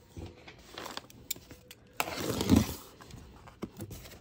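Cardboard shipping case being handled and its packing tape cut open with a box cutter: scattered scrapes and taps, with a louder tearing, rustling scrape about two seconds in.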